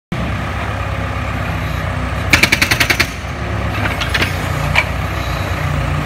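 Backhoe engine running steadily while its hydraulic breaker hammers on concrete in one rapid burst of blows lasting under a second, about two seconds in, followed by a few single knocks.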